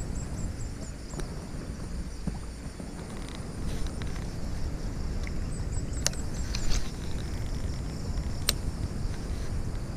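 Wind rumbling on the microphone over a steady high insect buzz. Two short runs of quick high chirps come near the start and again past the middle, and a few sharp clicks are heard, the loudest past the middle.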